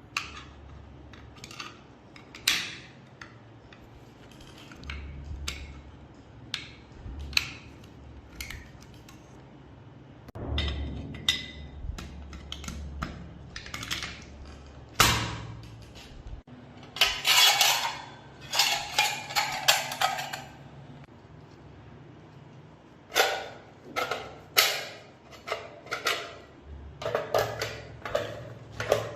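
Metal gun parts being handled and fitted together: a string of sharp clicks and clinks of metal on metal, with a quick flurry of them about halfway through and another run of clicks near the end.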